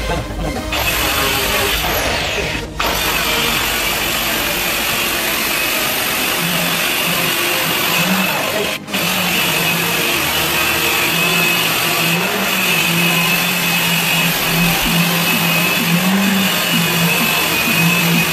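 Handheld electric marble cutter with a diamond blade cutting through a white marble slab: a loud, continuous grinding whine, dropping off briefly about three seconds in and again about nine seconds in.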